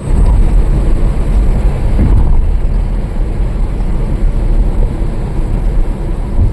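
Car driving along an open road: a loud, steady low rumble of road and wind noise.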